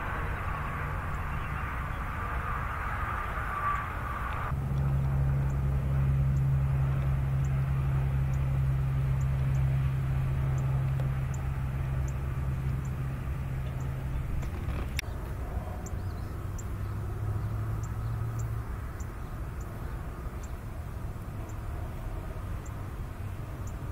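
Highway traffic: a steady low drone of passing vehicles, louder from about four and a half seconds in to about fourteen seconds, and changing abruptly twice.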